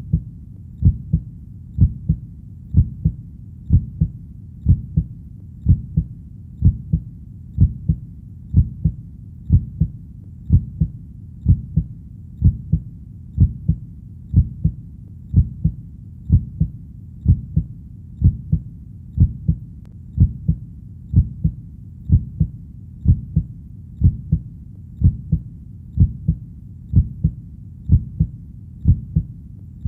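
Heartbeat sound: a steady lub-dub of paired low thumps, about one beat a second, with no change in pace.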